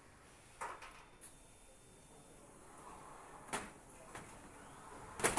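A handful of sharp mechanical clacks at an engine-assembly workstation, spaced a second or two apart, with the loudest near the end, over faint steady room noise.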